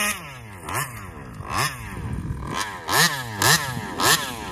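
Taylor 35cc reed-valve two-stroke engine in an RC car, its throttle blipped about six times in quick rising and falling revs, sinking low in between. It won't idle, which the owner puts down to a faulty carburetor.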